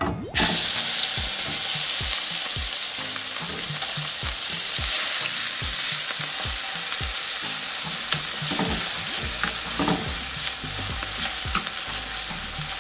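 Curry-seasoned shrimp dropped into hot olive oil in a nonstick skillet, sizzling as they start to sear. The sizzle starts suddenly about half a second in and stays steady while a utensil pushes the shrimp around the pan.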